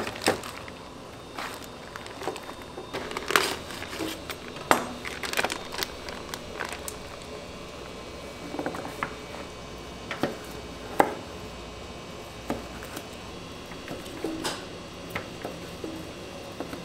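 Scattered food-handling noises: metal tongs clicking, a plastic vacuum bag crinkling and plastic containers knocking as sauce-marinated pork ribs are lifted out and handled. The sounds come as irregular sharp clicks and knocks.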